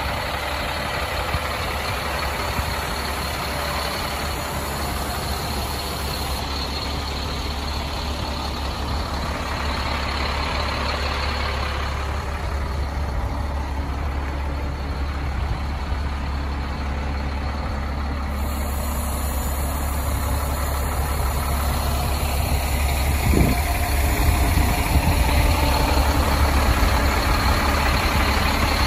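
Caterpillar C7 inline-six turbo diesel of an M1088A1 military truck idling steadily, growing slowly louder toward the end. There is a single short thump a little past two-thirds of the way through.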